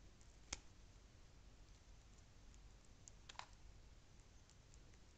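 A few faint clicks of a small brass spade connector and wire being handled and fitted: one about half a second in, and a couple more just after three seconds, over near silence.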